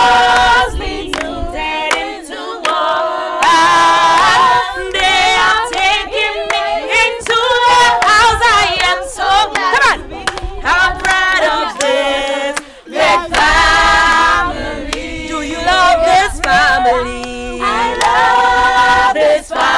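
Women singing together without instruments, choir-like, holding wavering notes in phrases with short breaks between them.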